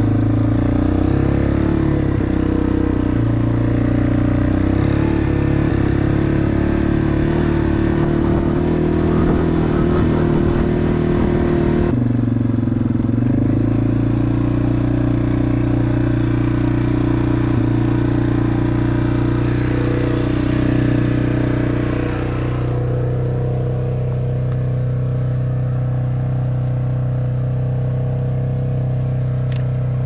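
Single-cylinder dirt bike engine running steadily while riding. The engine note drops about twelve seconds in, and the engine eases off about ten seconds later.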